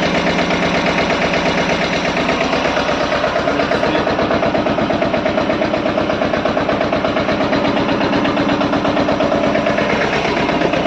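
Mahindra Jivo 24 HP tractor's diesel engine running steadily with a rapid, even beat.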